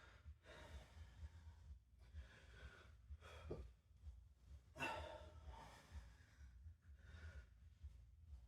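A man's faint breathing, with short, forceful exhales every second or two as he works through curl-ups, over a low room hum.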